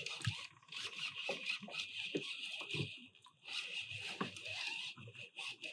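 Fishing reel being wound in on a freshly hooked trout: a soft whirring hiss in two spells, with light clicks and knocks.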